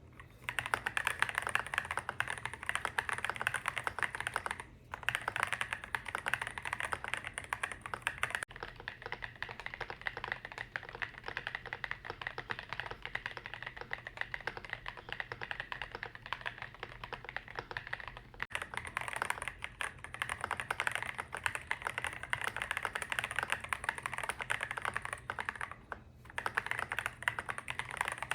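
Fast continuous typing on an EPOMAKER RT65 mechanical keyboard with stock switches and Soymilk HSA keycaps, a dense run of key clacks with brief pauses about five seconds in and near the end. The tone changes twice as the recording switches between an iPhone 15 microphone and a cheap external microphone.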